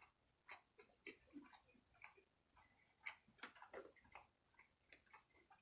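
Faint close-up chewing: soft, irregular wet mouth clicks and smacks of a person eating.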